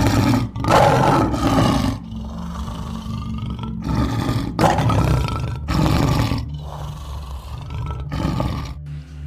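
A large animal giving a series of loud, harsh calls, about six, each lasting under a second, with short pauses between them.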